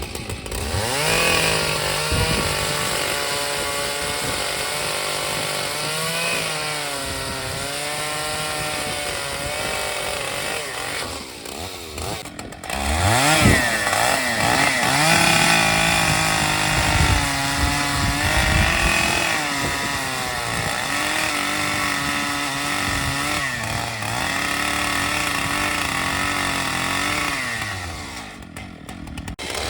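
Two-stroke chainsaw running under load while cutting wood, its engine pitch wavering up and down. About twelve seconds in the engine falls off briefly, then revs back up with a quick rising sweep, and it dips again near the end.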